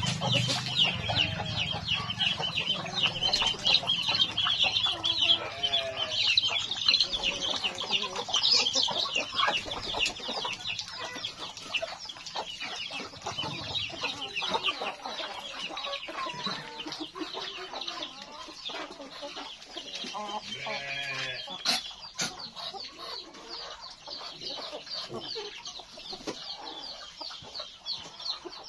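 Free-range village chickens (ayam kampung) clucking, with a rapid high chirping running underneath and a sharp click about three quarters of the way through.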